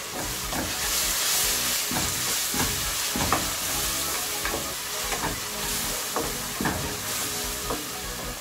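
Onions and ginger-garlic paste sizzling in hot ghee in a non-stick pot, stirred with a wooden spatula that scrapes across the pan in short strokes about every half second or so.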